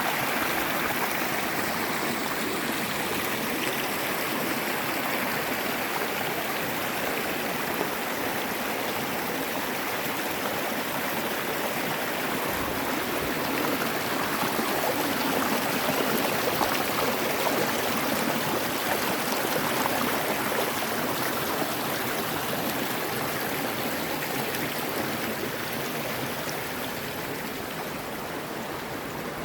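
Steady rushing water of a river and waterfall, a continuous full wash of sound that swells a little in the middle and eases off slightly near the end.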